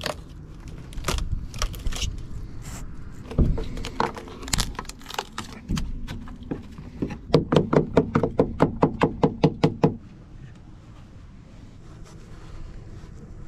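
Hand tools knocking on the barge's wooden rudder while rotten wood is opened up: irregular knocks and taps, then a quick, even run of about a dozen ringing strikes, roughly four or five a second, that stops suddenly about ten seconds in.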